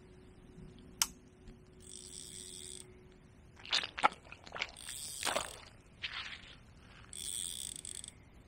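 Fixed-spool baitrunner reel being wound in three short bursts of whirring, with a sharp click about a second in and rustling handling noise in the middle.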